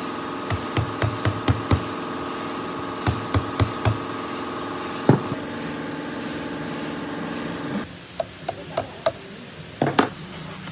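An aluminium motor cooling fan being knocked onto the motor shaft through a rubber sleeve: a run of sharp knocks, about a dozen in the first four seconds, one harder knock a little after five seconds, then lighter metal clicks as it is settled by hand. A steady held tone sounds underneath and shifts pitch once, stopping abruptly about eight seconds in.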